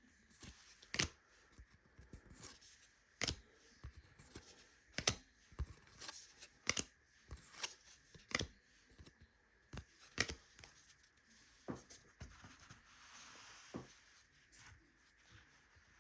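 Trading cards being flipped through one at a time by hand, each card giving a short sharp snap every second or two, with light paper rustling between.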